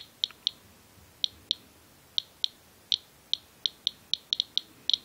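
Inspector USB Geiger counter chirping with short, high beeps at random intervals, about three a second, each beep one detected count. The rate matches a reading of around 180 counts per minute from contamination on a coat hood, several times the normal background of about 40.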